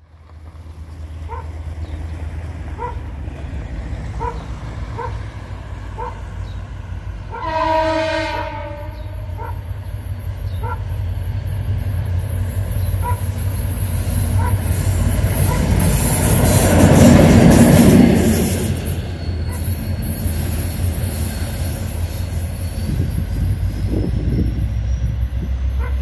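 Freight train of grain wagons hauled by two class 2044 diesel locomotives passing by: a steady low diesel rumble grows louder, with one horn blast of about a second some eight seconds in. The train is loudest as the locomotives go past just after the middle, then the wagons' wheels clatter on.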